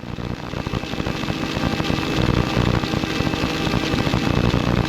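Helicopter engine and rotor running steadily in flight, heard from the cabin: a dense, even noise with a rapid low pulsing and a steady tone over it.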